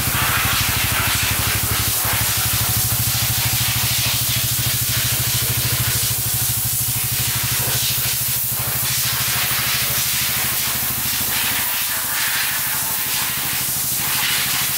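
AJS Cadwell 125's air-cooled single-cylinder four-stroke engine idling steadily, with a steady hiss over its even low beat.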